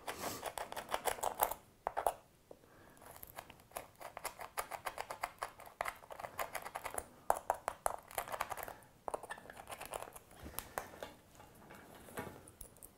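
Small screwdriver tip scratching and picking dried mud out of the Allen bolt heads on a worn Shimano SPD-SL cleat: runs of quick scraping clicks with a couple of short pauses.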